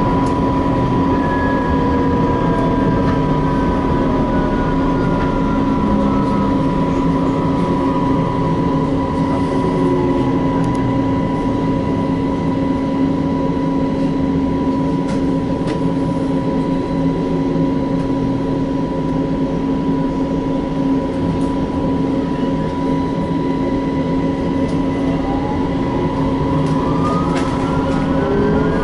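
Electric tram running, heard from inside the car: a steady electrical hum with traction-motor whine over rolling noise. The whine falls slowly in pitch over the first several seconds and climbs again near the end.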